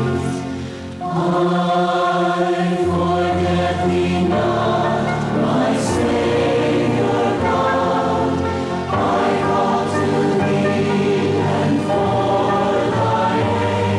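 Group of voices singing a slow devotional song over sustained accompaniment, the held chords changing every one to three seconds.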